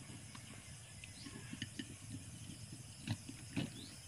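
Faint crackling and small clicks as a spoon spreads margarine over a crispy fried shredded-cassava cake, with two sharper clicks a little past three seconds in.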